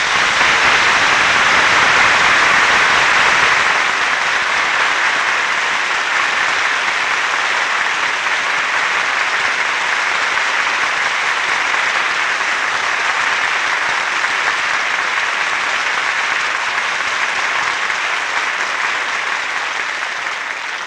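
Audience applauding, loudest over the first few seconds, then steady, dying away near the end.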